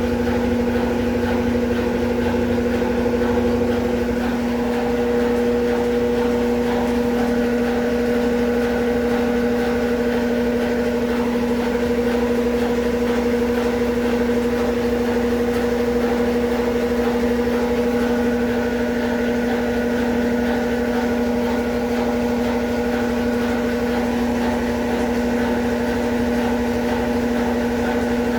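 Consul Facilite 11 kg (CWG11) top-loading washing machine running its rinse cycle: a steady motor hum with one strong low tone, easing slightly about four seconds in.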